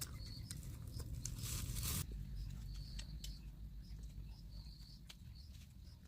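Rustling and pattering for about the first two seconds, with short high chirps repeating throughout over a low steady hum.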